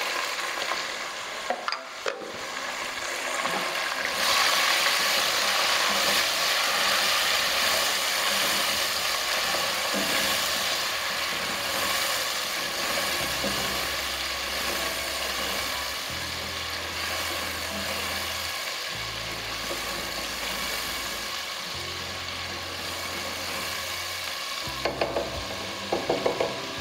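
Chopped tomatoes and ginger-garlic paste frying in hot mustard oil, a steady sizzle that grows louder about four seconds in, with a spatula stirring and scraping in the pot.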